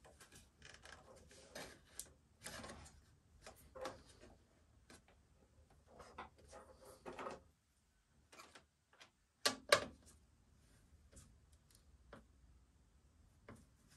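Hands working in the back of a PC tower case, handling cables and parts: scattered light clicks and rustles, with two sharp knocks about nine and a half seconds in.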